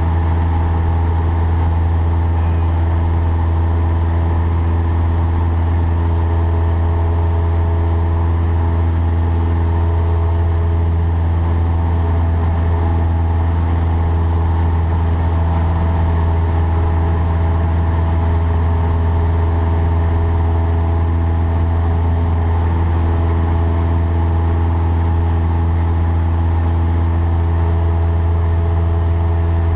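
Cessna 152's four-cylinder Lycoming O-235 engine and propeller running at a steady, unchanging speed, a loud low drone heard from inside the cockpit.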